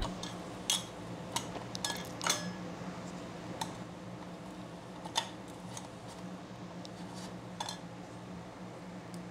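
Light metallic clinks of hand tools and small hardware being handled, scattered a second or more apart, over a steady low hum.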